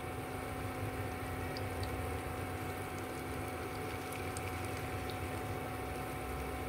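Battered banana pieces deep-frying in a pan of hot oil: a steady sizzle and bubbling with faint small pops, over the induction hob's faint steady hum.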